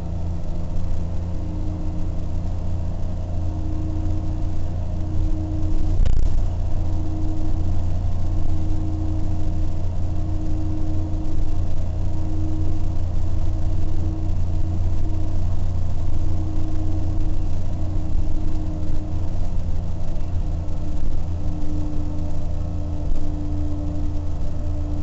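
Interior of a 1992 Orion V transit bus cruising at highway speed: its Detroit Diesel 6V92TA two-stroke V6 diesel drones steadily under road noise, with a whine that fades in and out. A single knock comes about six seconds in.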